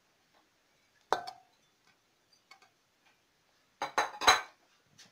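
A utensil clinking against a metal cooking pot holding chopped onions: one sharp clink with a short ring about a second in, then a quick cluster of louder knocks near the end.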